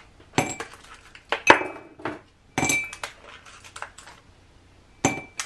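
Hard ceramic and metal kitchenware clinking and knocking as it is handled on a counter, four separate clinks with a short ring after each, the loudest about one and a half seconds in.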